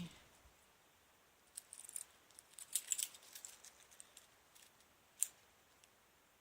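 Faint small clinks and rattles of a wristwatch being handled, with one sharper click about five seconds in.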